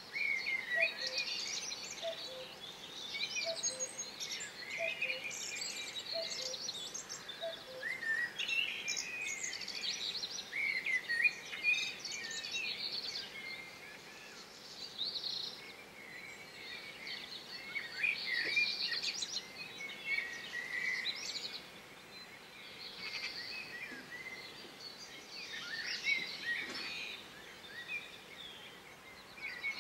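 Small birds singing and chirping in the bushes, many short twittering calls overlapping throughout. For the first eight seconds or so, a faint low two-note call repeats at a steady pace underneath.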